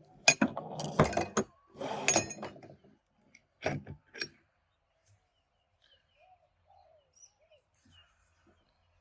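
Metal transmission parts being handled: a clatter of clinks and knocks with some scraping in the first four seconds or so. After that come only faint bird chirps.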